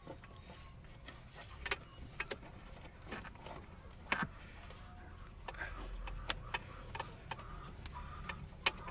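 Scattered light clicks and clacks, about seven in all, as hands handle a line fitting and a white plastic part at the edge of a van's AC condenser.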